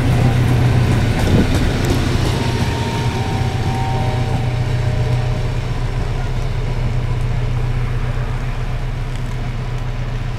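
SU42 diesel locomotive working under power as it pulls a train of double-deck coaches away, its steady low engine drone slowly fading as the train recedes.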